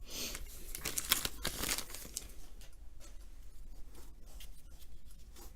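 2019 Topps baseball cards being handled and flipped through, the cards sliding and rubbing against each other in a dry paper rustle with small clicks. The rustle is busiest in the first two seconds, then thins to occasional soft flicks.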